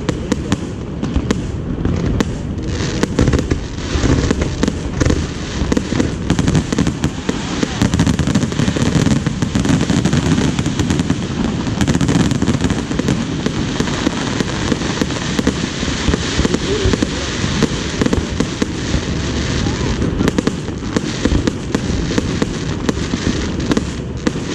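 Aerial fireworks display: a dense, unbroken barrage of bangs and crackles, with voices in the crowd.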